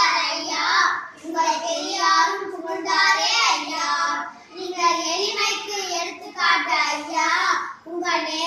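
Two young girls singing a Tamil song together without accompaniment, in short sung phrases with brief breaks for breath.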